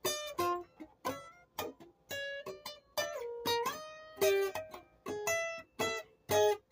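A plucked string instrument playing a slow melody of single picked notes, each ringing and fading before the next, with one note sliding down in pitch about three seconds in.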